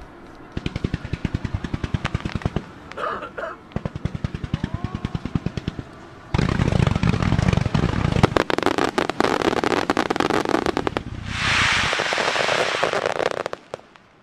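Starmine fireworks barrage: rapid strings of sharp launch pops, many a second, then about six seconds in a loud dense run of deep booms and crackling bursts. A steady hiss follows for about two seconds near the end.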